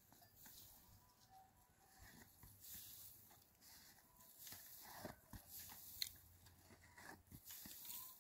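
Very faint scraping and scuffing as a bull paws the sandy ground with a front hoof, throwing up sand, with one sharper click about six seconds in.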